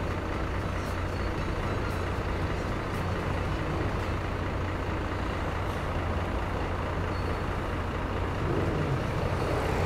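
Steady city road traffic, with a low engine hum running throughout.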